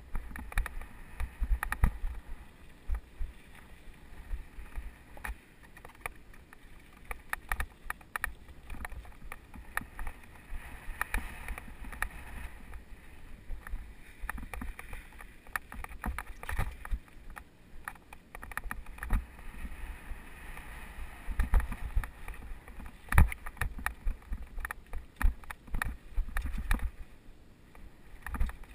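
Mountain bike rattling and clattering down a rough dirt trail, with a dense run of sharp knocks from the bike and tyres over bumps and some bigger jolts now and then. Under it is a low rumble that comes and goes, heard through a helmet-mounted camera.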